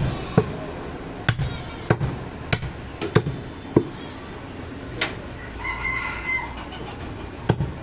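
Heavy cleaver chopping goat meat and bone on a wooden log chopping block, about eight sharp, hard chops at uneven intervals. A brief high call sounds about six seconds in.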